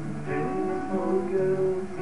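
Acoustic guitar being played, a run of notes ringing and changing.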